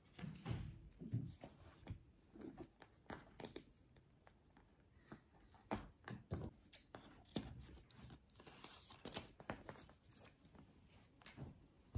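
Hands handling folded linen bedding in paper wrappers tied with string: soft rustling of fabric and paper with many small clicks and taps on the table. Scissors snip near the end.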